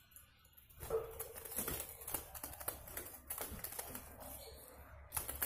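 Zebra dove fluttering and scrabbling inside a bamboo cage, its wings and feet knocking against the bars and perch in a rapid, irregular clatter of taps that starts about a second in.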